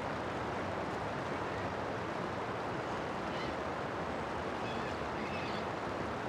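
Steady outdoor ambience, an even rushing noise, with faint distant waterfowl calling a few times in the second half.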